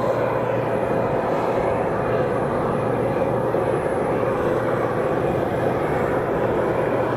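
Steady jet noise from a Bombardier CRJ-900 regional jet's twin rear-mounted turbofans as it touches down and rolls out on the runway.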